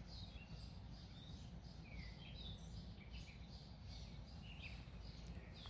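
Birds chirping faintly in short, repeated calls over a low, steady background rumble.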